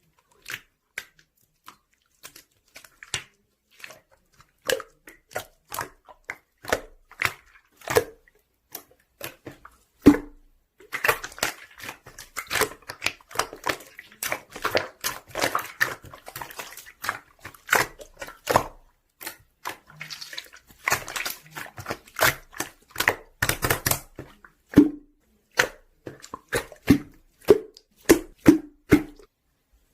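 Slime being squeezed and pressed by hand, making wet clicks and pops. They come singly at first, run together into dense squelching crackles from about ten seconds in until near the end, then come singly again.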